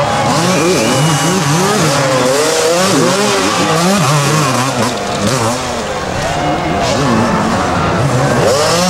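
Several two-stroke motocross bikes racing, their engines revving up and down with many overlapping, constantly changing pitches.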